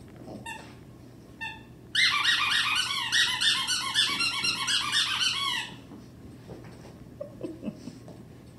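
Squeaky toy ball squeaking under a Pekingese puppy's chewing: a couple of single squeaks, then a long run of quick squeaks lasting about three and a half seconds that stops abruptly.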